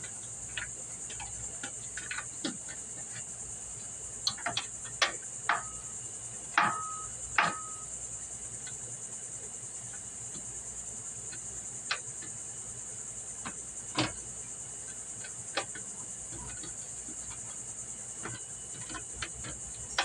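Scattered metallic clicks and clinks of a T27 Torx driver and screws being worked out of a riding mower's metal panels. The loudest clinks ring briefly, about six and seven and a half seconds in. A steady high insect chorus runs underneath.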